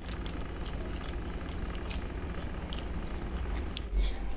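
Eating with the hands: scattered soft clicks and smacks of chewing and of fingers tearing puri and working food in curry, with a louder crackle about four seconds in. A steady high-pitched whine and a low hum run underneath.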